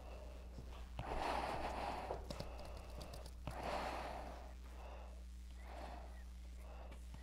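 A person breathing audibly, a slow in-and-out about every two seconds, over a steady low hum.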